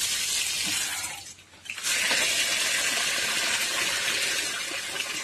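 Water splashing as raw rice is rinsed in a steel bowl: the rinse water is poured off onto the ground, stops briefly about a second and a half in, then a tap runs into the bowl, refilling it.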